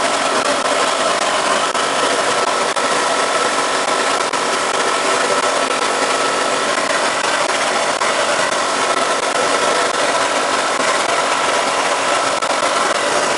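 Wet blast cabinet running steadily: the even hiss of the blast nozzle spraying slurry, over a steady hum from the machine.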